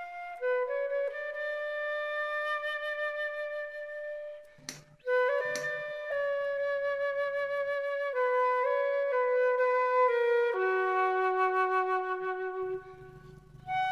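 Background music: a slow flute melody of long held notes. Two brief clicks break in about five seconds in.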